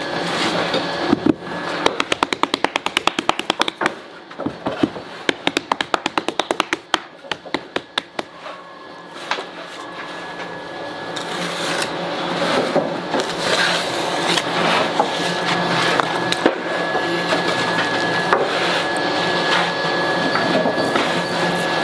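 Hand work on clay roof tiles at a wooden bench: a fast run of light taps and knocks for several seconds. Then a steady hum with a thin high whine that grows louder from about halfway.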